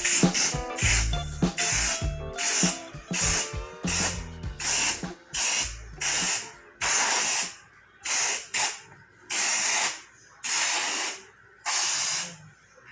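Paint being sprayed onto a wooden door in short hissing bursts, about one a second. Background music with a low beat plays under the first half and fades out about six seconds in.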